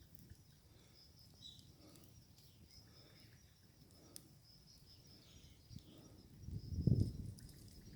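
Faint outdoor ambience with a steady high chirping of birds or insects and a few faint clicks, and a low rumble that swells and fades about six to seven and a half seconds in.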